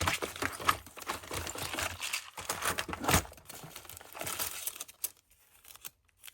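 Crinkling and rustling of packaging being handled, with sharp clicks and small knocks mixed in, the loudest about three seconds in; it dies down about five seconds in, leaving a few scattered clicks.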